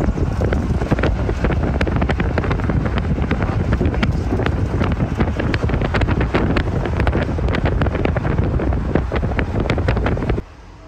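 Wind buffeting the microphone at the side window of a moving truck, with low road rumble underneath. The rush drops away suddenly near the end.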